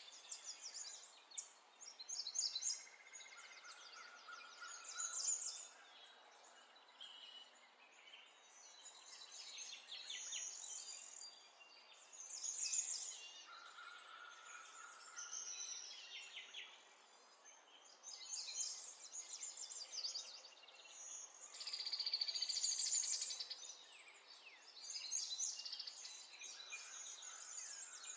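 Birds chirping and trilling in repeated bursts of quick, high notes every few seconds, with a few short whistled notes in between.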